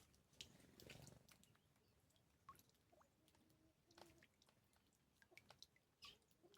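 Faint scattered clicks, splashes and a few short chirps from small birds bathing at a natural water pool, with a louder rushing burst about a second in.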